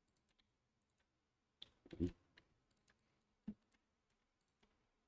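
Near silence with a few faint, scattered computer mouse and keyboard clicks, and one short low sound about two seconds in.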